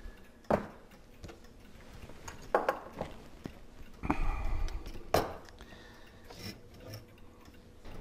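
Brass plates and small steel parts of a Hermle clock movement clinking and knocking against each other and the work surface as they are handled, with three louder knocks that ring briefly.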